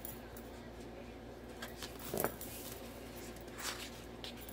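Paper planner sticker sheets being handled and shuffled on a table. A few brief rustles and taps, the loudest a little over two seconds in.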